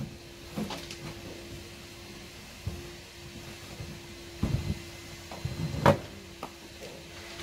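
Rope being pulled and tied down over a tarp on a ute's tray, with scattered knocks and rubbing; the loudest knock comes about six seconds in. A faint steady hum runs underneath.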